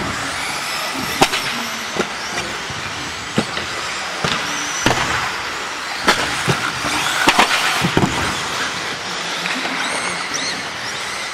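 Electric motors of 1/10-scale 2WD racing buggies, Associated RC10B4s, whining as they rise and fall in pitch, over the hiss of tyres on turf. Several sharp clacks come from the buggies at intervals.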